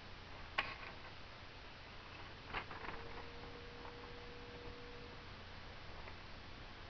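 Faint handling noise from a camera being moved over paper: two sharp clicks, about half a second and two and a half seconds in, then a few softer ticks, over low hiss and a steady hum. A faint steady tone sounds for about two seconds in the middle.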